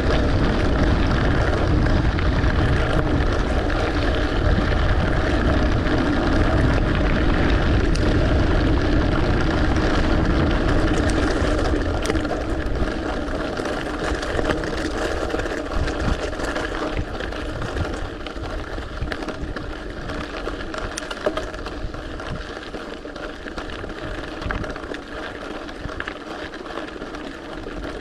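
Mountain bike rolling over a gravel forest road: a steady rumble of knobby tyres on loose stones, mixed with wind buffeting the handlebar camera's microphone. It eases a little after about twelve seconds.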